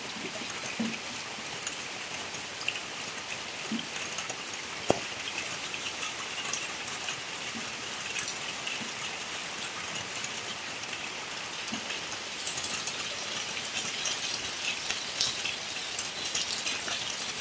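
Steady heavy rain falling on a wet dirt yard and foliage, an even hiss with many small drop ticks, growing somewhat heavier past the middle. A single sharp click about five seconds in.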